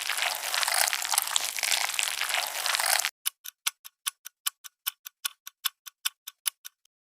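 A dense, crackling hiss lasts about three seconds and stops abruptly, then a quick run of evenly spaced ticks follows, about five a second, and stops shortly before the end.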